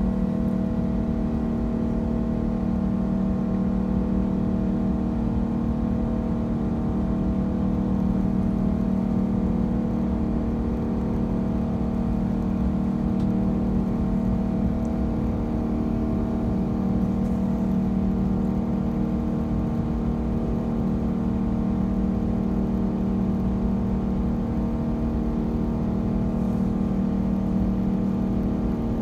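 Cabin drone of an Airbus A380's Engine Alliance GP7200 turbofan engines running at steady thrust, heard from a window seat inside the cabin: a steady mix of humming tones over a deep rumble.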